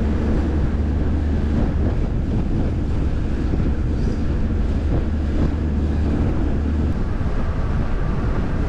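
Bass boat running at speed: heavy wind rushing over the microphone, with the outboard motor's steady low drone and water noise beneath. The low drone drops away about seven seconds in.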